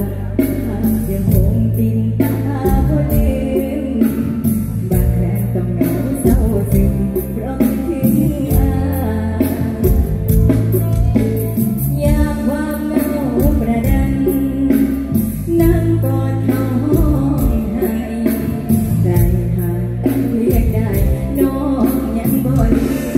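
Live mor lam band music, amplified on stage, with a young woman singing into a microphone over electric guitar, bass and a steady drum beat.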